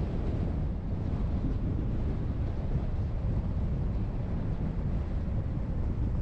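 Steady low rumble of a car driving, road and wind noise with no engine note standing out.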